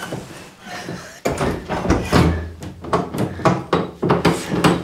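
A series of irregular knocks and clatters, starting about a second in, with some muffled voices.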